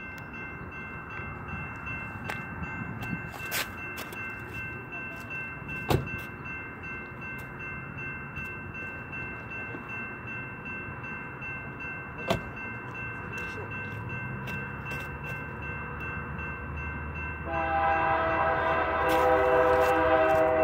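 A locomotive horn sounds loudly about three-quarters of the way through, holding a chord of several notes to the end. Before it, a fainter steady background with a few sharp clicks.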